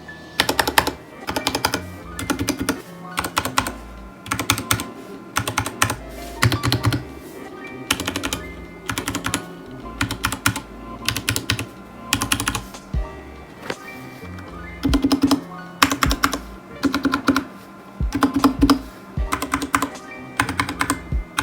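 Typing on a Royal Kludge RK61 60% mechanical keyboard with Gateron brown switches and ABS keycaps, in quick clusters of keystrokes about a second apart, over background music.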